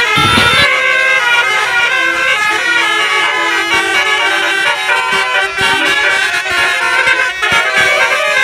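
Bus basuri telolet horn playing a tune: a loud run of reedy horn notes changing several times a second, with several tones sounding together.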